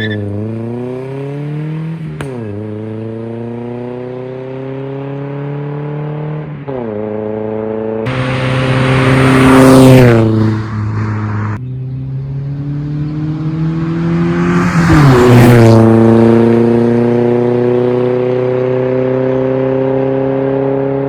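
Car engine and exhaust accelerating through the gears: the pitch climbs steadily and drops sharply at each of several upshifts. There are two louder swells, around ten and fifteen seconds in.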